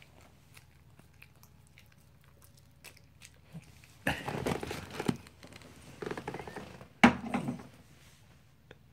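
A dog eating sticky rice off a paper plate: faint smacking at first, then, from about four seconds in, three louder bouts of chewing and licking with the plate crinkling and scraping, the last starting with a sharp knock.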